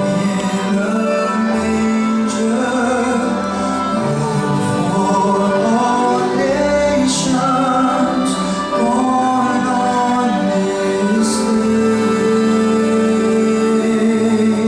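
Choir and orchestra performing a gospel-style Christmas song, mixed voices singing sustained lines over the instruments.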